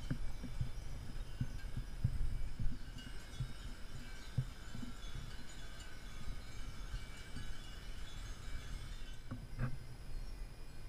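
Small bells on the umbrella finials of Burmese stupas tinkling faintly in the breeze, a scatter of high ringing notes, over a low rumble and thumps on the microphone, with a sharper knock near the end.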